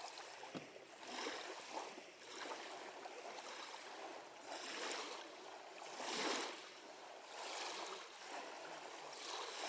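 Small waves lapping at a lake shore, the water noise swelling and falling back every second or two.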